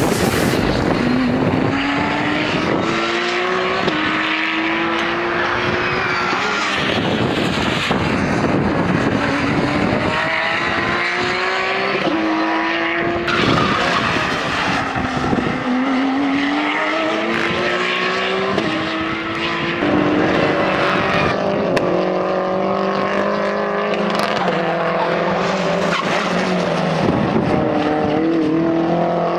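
Race car engines at full throttle, the pitch climbing through each gear and dropping back at every upshift, as several cars go by one after another.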